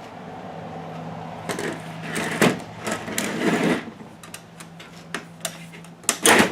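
Hands working on a car radio's metal chassis during disassembly: clicks, scraping and clatter of metal parts, with a loud knock near the end and a steady low hum underneath.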